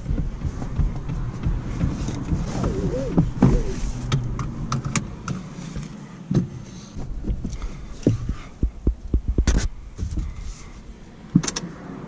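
Cabin noise of a moving MG ZS with its 1.0-litre turbo three-cylinder petrol engine: a low steady rumble of engine and road, broken by scattered clicks and knocks, with a sharp knock about nine and a half seconds in.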